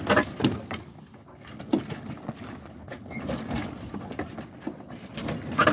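Sailboat sails and rigging slapping and rattling in irregular knocks as swells roll under the hull, with not quite enough wind to keep the sails full.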